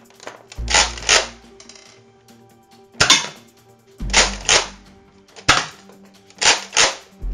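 Nerf Modulus Mediator toy blaster being handled: a series of sharp plastic clacks, several in quick pairs, as its parts and snap-on foregrip are worked. Faint music plays underneath.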